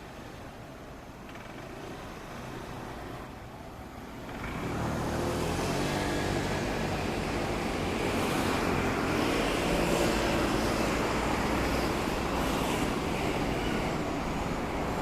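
A Keifuku Electric Railroad (Randen) tram running past with a steady mechanical running noise. The noise jumps up sharply about four and a half seconds in and then holds steady.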